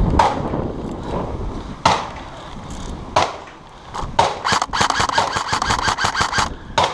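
Airsoft gun firing: a handful of single sharp clacks a second or so apart, then a rapid burst of about a dozen shots on full auto, lasting under two seconds.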